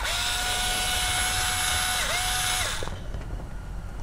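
Cordless screwdriver with a Torx bit running in a steady whine on a steering-column clock spring screw. The whine dips briefly about two seconds in, then stops just before three seconds.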